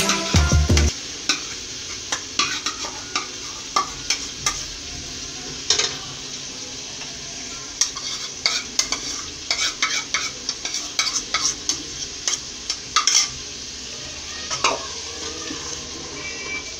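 Tomato-and-onion paste frying in hot oil in a steel pot. A steady sizzle runs under many short clicks and scrapes from a metal spoon scraping out the bowl and a steel ladle stirring against the pot. It is loudest in the first second, as the paste goes in.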